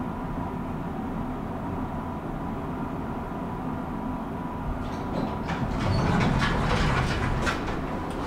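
Passenger lift running with a steady hum and a faint constant high tone. From about five seconds in come a run of clicks and a louder rush as the car stops and its sliding doors open.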